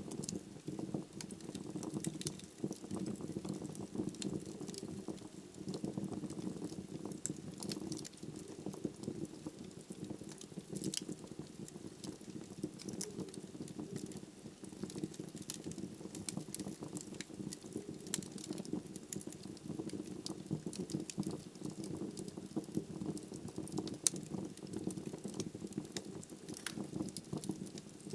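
Wood logs burning in a fireplace: a steady low rumble of flames under frequent small, irregular crackles and pops, with one sharper pop late on.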